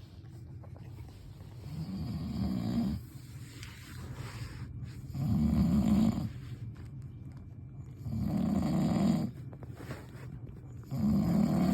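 Snoring in a slow, even rhythm: four loud snores about three seconds apart, each lasting about a second, quieter in between.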